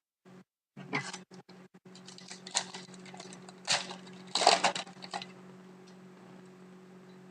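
Trading cards being handled and flipped through by hand: a few short paper swishes and scrapes with small taps and clicks, over a steady low hum.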